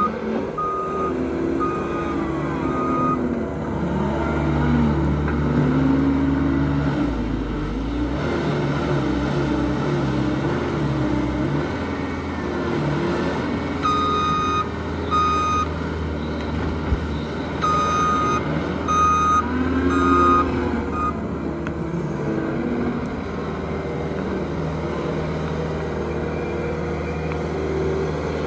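John Deere 333G compact track loader's diesel engine running and revving up and down as it works the bucket. A backup alarm beeps in short runs at the start, about halfway through, and again a few seconds later, as the loader reverses.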